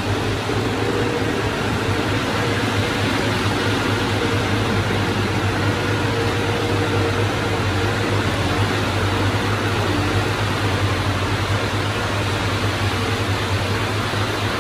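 Diesel engine of heavy earthmoving equipment running steadily, a constant low drone under a steady hiss.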